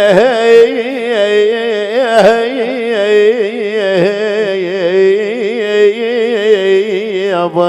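Instrumental interlude of Arabic mawwal music: a reedy, nasal melody with a wavering, ornamented line over a steady drone, with a few sharp hits.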